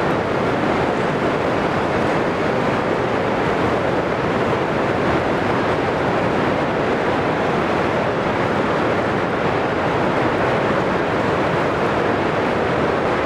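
Steady heavy rain during a thunderstorm: an even rushing noise that holds the same level throughout, with no thunderclaps.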